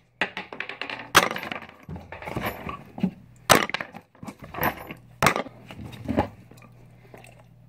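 Several sharp cracks and knocks with crackling, crunchy clatter between them.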